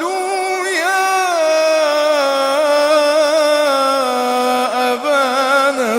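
Male Quran reciter chanting in melodic tajwid style, holding one long drawn-out vowel with small ornamental turns in pitch.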